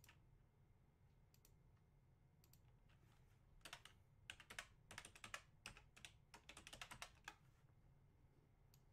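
Faint typing on a computer keyboard: a few scattered keystrokes, then a quick run of keys for about four seconds, as an entry that was typed in wrong is typed again.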